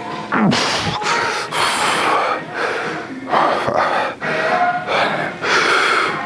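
A man breathing hard in a run of loud gasping breaths after a set of exercises, with music playing underneath.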